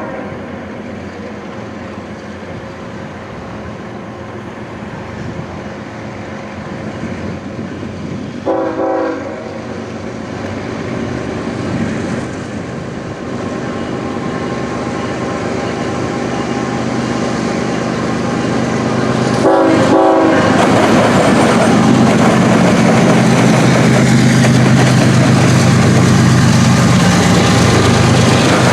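Approaching intermodal freight train: the diesel locomotive's air horn sounds a blast about a third of the way in and another about two-thirds in, over engine and rail noise that grows steadily louder. From the second blast on, the train is passing close, loud and steady.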